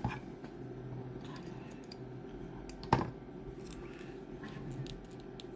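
Small hard clicks and light knocks of 3D-printed PLA lamp parts being handled and fitted together, with one sharper click about three seconds in.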